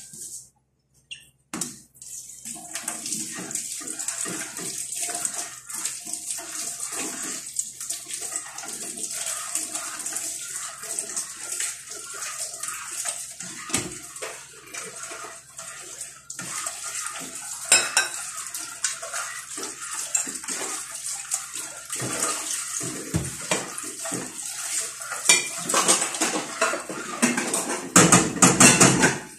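Metal spoon stirring a stainless steel pot of simmering milk, sugar and pinipig (pounded young rice flakes), with many small clinks and scrapes against the pot over a steady hiss. The stirring gets louder and busier near the end.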